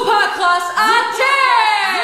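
A singing voice, each note scooping up at its start and gliding down as it fades.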